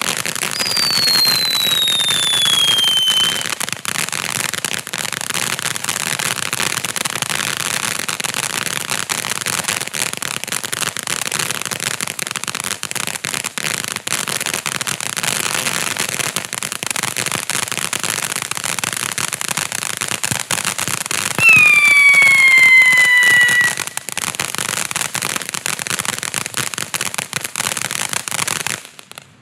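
Black Cat Neighbor Hater ground fountain firework burning with a continuous dense crackling hiss. Twice a whistle sounds and falls in pitch: a long one near the start, and a louder one about two-thirds of the way through. The fountain burns out and the sound cuts off just before the end.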